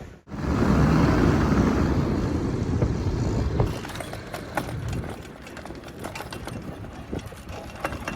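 An engine running, loud for the first few seconds, then quieter with a light rapid ticking.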